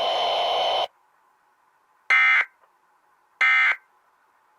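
Emergency Alert System end-of-message code: steady background audio cuts off about a second in, then two short, identical buzzy data bursts sound about a second and a quarter apart. These are the digital end-of-message (NNNN) tones that close the alert broadcast.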